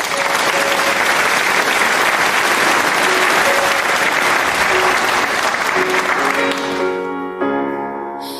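A large crowd applauding steadily over instrumental music. The applause dies away about seven seconds in, leaving the music's held notes.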